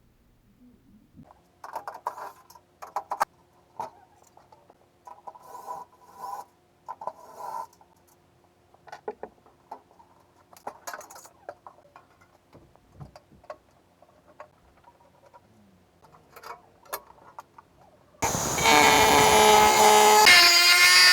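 Workshop handling noises: wooden parts and tools knocking, clicking and scraping in short bursts. Near the end a much louder, steady sound with a clear pitch sets in and shifts pitch once.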